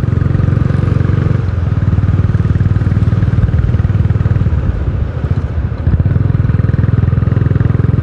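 Royal Enfield Bullet's single-cylinder four-stroke engine running with a steady, fast beat of exhaust pulses, easing slightly about a second in and again about five seconds in.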